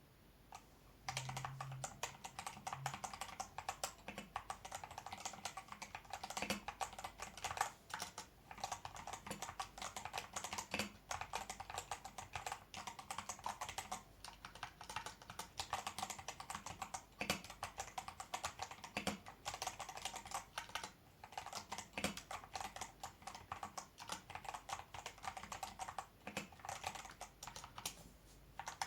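Typing on a custom mechanical keyboard with silver switches: rapid, continuous key clicks with short pauses, starting about a second in.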